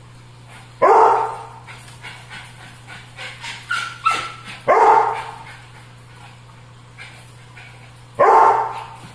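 Small dog barking in play: three loud single barks several seconds apart, with a couple of short higher yips just before the second.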